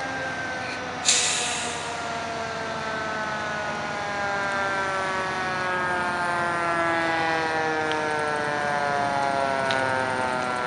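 Fire truck siren winding down in one slow falling tone, with a short, sharp hiss of air brakes about a second in.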